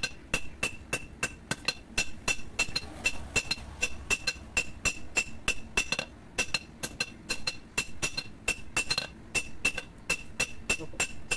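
Hand hammer beating a red-hot steel blade, made from an old power-tiller tine, on a steel anvil block: quick regular blows, about four a second, each with a bright metallic ring.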